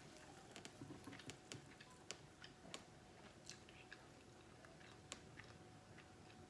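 A person chewing meat close to the microphone, faint, with irregular small wet clicks and smacks from the mouth.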